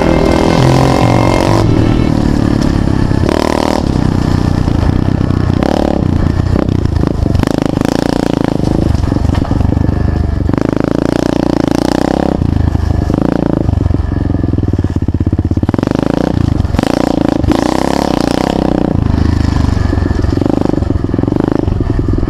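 SSR 125 pit bike's single-cylinder four-stroke engine, revving up and falling back again and again as the bike is ridden along a bumpy dirt trail, with the clatter of the bike over the ground.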